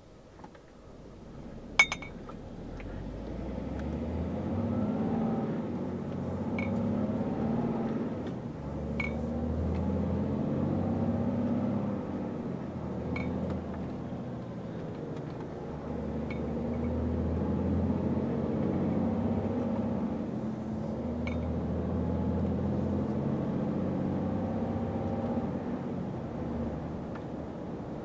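Iveco truck's diesel engine heard inside the cab, building up from quiet and then running under load, its level rising and falling. A sharp click comes about two seconds in, with a few faint ticks later.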